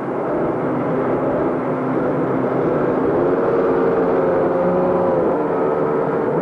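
Several racing motorcycle engines running together on the starting grid. Their pitch is held steady, rises about halfway through and falls again near the end.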